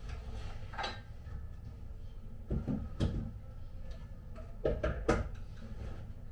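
Knocks and clunks of wooden boards and objects being handled and set down on a wooden cupboard, with a scrape near the start. Two sharp knocks come about two and a half to three seconds in and two more around five seconds, over a low steady rumble.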